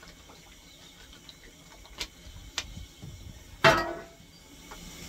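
A couple of light clicks, then one loud metallic clank with a brief ring about three and a half seconds in: the steel firing shovel being moved and knocked against the locomotive's ironwork at the firehole.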